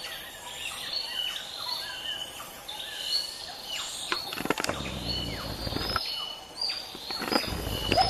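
Wild Bornean white-bearded gibbons calling in a territorial group encounter: many overlapping high, wavering calls with short gliding notes. A couple of sharp knocks with a low rumble come about halfway through and near the end.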